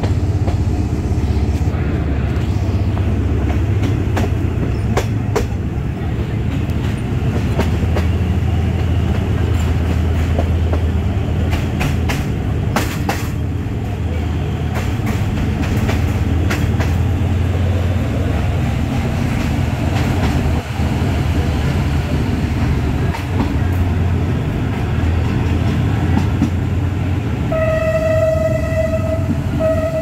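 Twin Cummins LTA50L V16 diesel engines of the locomotive running under load, a steady low drone with the wheels clicking over rail joints, heard through the open window of the coach behind. Near the end the locomotive horn sounds twice, a longer blast then a short one.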